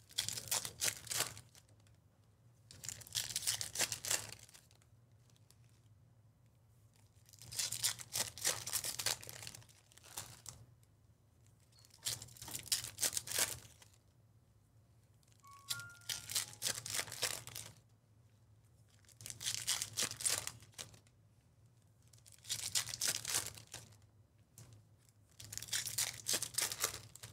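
Foil wrappers of Topps Chrome baseball card packs being torn open and crinkled, one pack after another: about eight crackly rips, each a second or two long and a few seconds apart.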